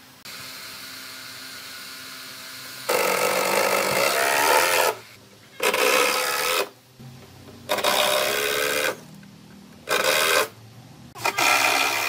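Cordless power drill driving screws in five bursts of one to two seconds with short pauses between, its motor whine wavering in pitch under load, after a few seconds of quieter steady hum.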